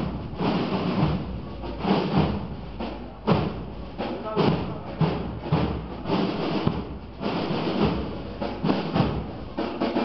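Irregular thuds and knocks, several in quick succession at times, over a background of voices.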